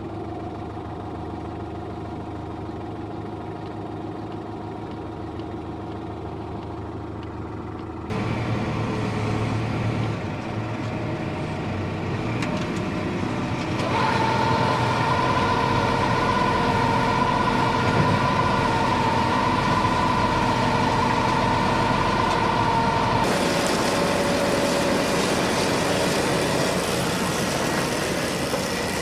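Tractor engine running steadily along with machinery noise. The sound changes abruptly about eight, fourteen and twenty-three seconds in, and is louder and brighter from about eight seconds on. A steady high-pitched whine stands out between about fourteen and twenty-three seconds.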